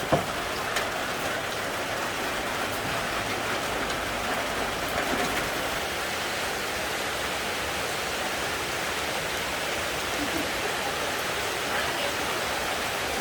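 Steady rain falling, an even hiss of drops, with a single sharp tap right at the start.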